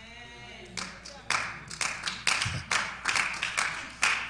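Hand claps, sharp and separate, about three a second, starting about a second in, over faint voices.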